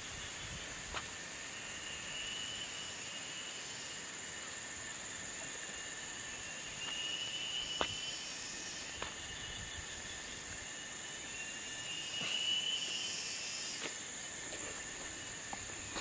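Outdoor insect chorus: steady high-pitched shrilling, with a wavering call that swells and fades three times. A few faint clicks.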